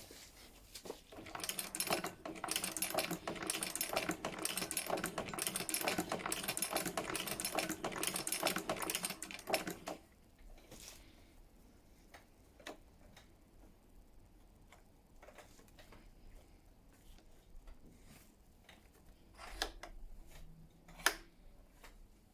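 Antique walking-foot sewing machine stitching at a fast, rhythmic clatter for about nine seconds, then stopping. A few faint clicks follow, with two sharper clicks near the end.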